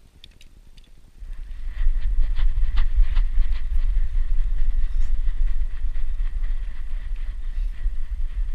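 Loud low rumbling with irregular clicks and knocks from a GoPro camera harnessed to a running dog, starting about a second in: wind and the dog's body movement buffet the microphone, with quick scrabbling steps.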